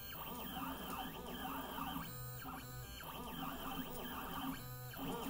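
Stepper motors of a Mostly Printed CNC (MPCNC) running a pen-plotting job. They whine in tones that sweep up and down around each curved end of a loop and hold steady along the straight sides. The pattern repeats about every two and a half seconds, one lap per loop.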